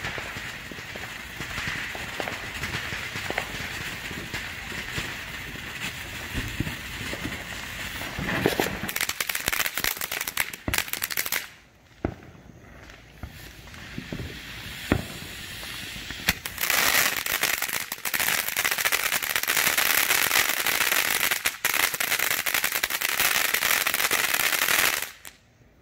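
Ground fountain firework spraying sparks: a steady hiss full of crackles. It drops off sharply about halfway through, then flares up loud again for several seconds and cuts out near the end.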